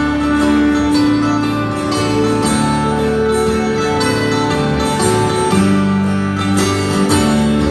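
Live band playing an instrumental passage between sung verses: strummed acoustic guitars over bass, with long held notes.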